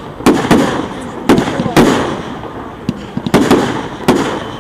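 Fireworks display: aerial shells going off in quick succession, with about seven sharp, loud bangs in under five seconds, each followed by a fading tail.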